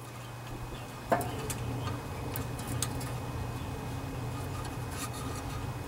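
Light clicks and small metallic taps as a carburetor and its throttle linkage are worked by hand onto the mounting studs, with one sharper click about a second in. A steady low hum sits underneath.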